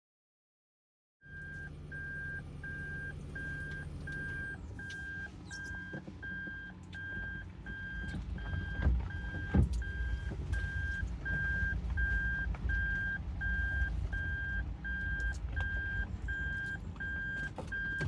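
A car's electronic warning beeper beeping steadily, about two high beeps a second, over the low rumble of the vehicle, starting about a second in.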